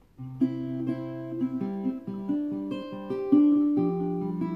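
Acoustic guitar coming in with a song's intro: a pattern of single notes ringing over one another, with a stronger accent a little past the middle.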